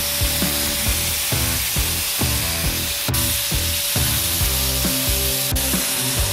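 Electric turbine paint sprayer running steadily while spraying a primer coat: a continuous hiss of spray with a steady whine. Background music with a beat plays along underneath.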